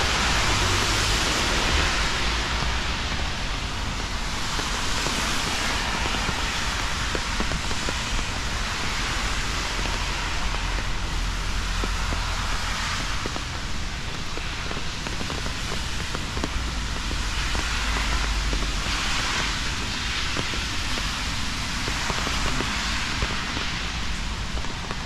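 Steady rain falling: a continuous hiss, with a low rumble underneath.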